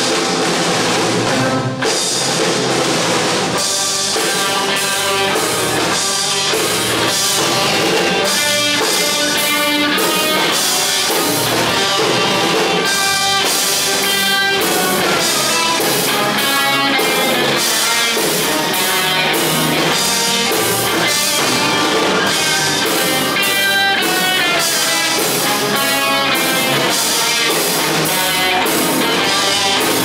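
Live instrumental heavy-metal band playing: electric guitar, electric bass and a drum kit together at full volume, with a steady driving beat.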